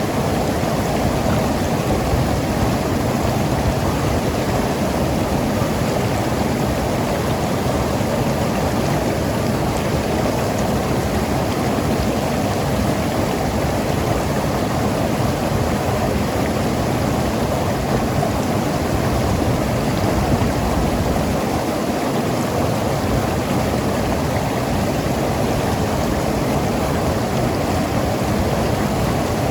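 Mountain river rushing and gurgling over rocks: a steady, continuous wash of flowing water.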